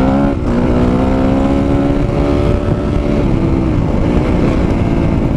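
Dirt bike engine running under throttle: its pitch climbs a little and holds, then drops slightly about three seconds in and carries on lower, over a steady low rumble.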